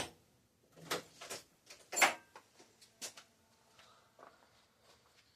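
Hand tools being picked up and handled on a workbench, a chain breaker among them: a handful of separate sharp clacks and rattles about a second apart, loudest at the start and about two seconds in.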